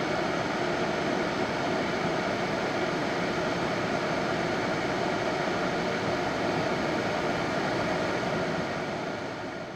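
A steady, dense droning noise from a horror film's soundtrack, with faint sustained tones inside the hiss, fading out near the end.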